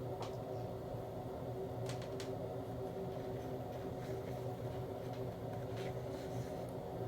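Steady mechanical hum with a few fixed tones, with faint clicks near the start, about two seconds in and near the end.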